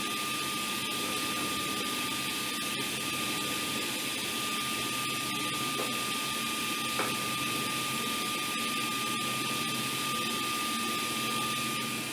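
A power woodworking tool running steadily with a constant high whine while cutting rabbets into the side boards of a beehive brood box.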